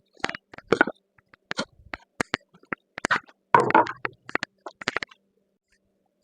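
A string of sharp clicks, taps and knocks from handling a cedar board and tools at the saw bench, with a brief scraping rustle about three and a half seconds in.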